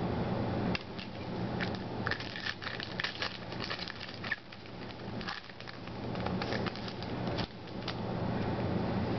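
Trading cards being handled and flipped through by hand: an irregular run of light clicks and scrapes of card stock, over a steady low hum.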